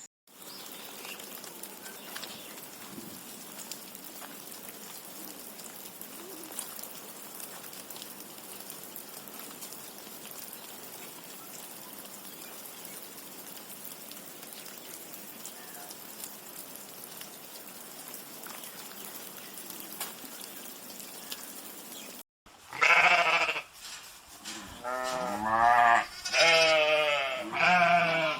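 Sheep bleating loudly several times in the last few seconds, each call long and wavering. Before the bleats there is only a steady faint hiss.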